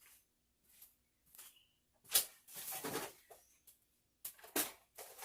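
Hand tools being handled: scattered clicks, a sharp knock about two seconds in, a short scraping rattle just after it, and a few more knocks near the end.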